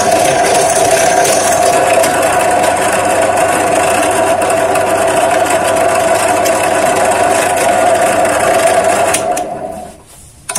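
Bench drill press running steadily with a 5 mm bit cutting through the wall of hollow square steel tube, a held tone under a dense cutting noise. The sound drops away about nine seconds in as the bit comes up out of the hole.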